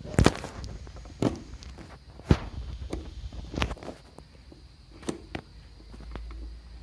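A screwdriver working a screw into a motorcycle's air filter cover: a handful of short sharp knocks and clicks of metal on metal and plastic, lighter ones near the end.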